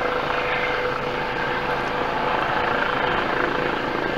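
Air-ambulance helicopter flying close by: a steady rotor and turbine drone with a constant whine.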